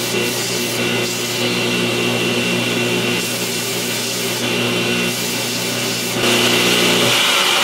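Electric power tool running steadily while cutting into knife handle-scale material: an even motor hum under a cutting hiss, louder from about six seconds in.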